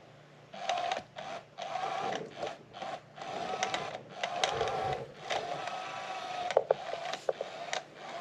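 The electric motor of a SmartyKat Hot Pursuit cat toy, running in irregular stop-start spurts of whirring with short breaks. Sharp clicks come in the second half.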